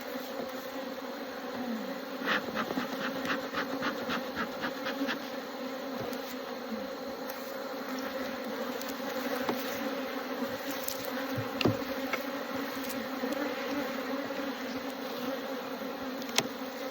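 Honeybee colony buzzing around an opened hive, a steady hum. About two seconds in comes a quick run of light clicks, roughly three or four a second for about three seconds, and later two single knocks.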